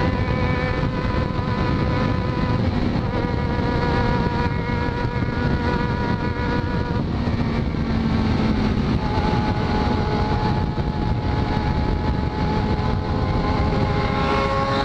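Yamaha XJ6's 600 cc inline-four engine running steadily at cruising speed, with heavy wind rushing over the microphone. The engine note drops in pitch about halfway through and climbs a little near the end.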